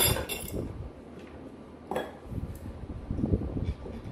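Metal spoon and chopsticks clinking against a stainless pot and dishes while rice is scooped out: a few scattered light clinks.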